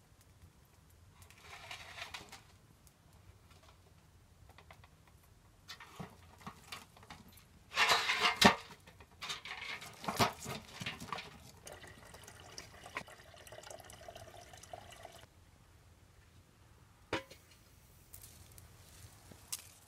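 Sticks of firewood handled and knocked together in a metal basin as a wood fire is built up, with scattered scrapes and clicks and a cluster of loud clattering knocks about eight seconds in.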